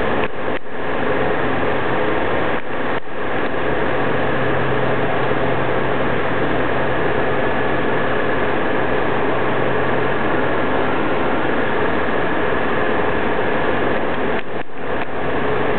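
A machine running with a steady whirring hum and a steady high tone, dipping out briefly three times: near the start, about three seconds in, and near the end.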